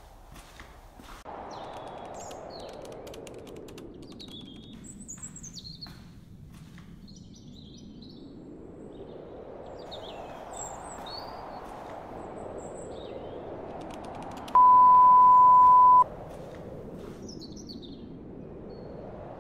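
Small birds chirping in short scattered calls over a steady rushing noise that slowly sinks in pitch and then rises again. About three-quarters through, a loud steady high-pitched beep sounds for about a second and a half.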